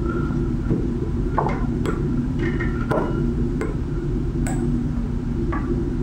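Light, irregular clicks and ticks, about seven, from the hot air gun's metal heater tube and handle parts being handled and worked loose at the wire connections. A steady low hum runs under them.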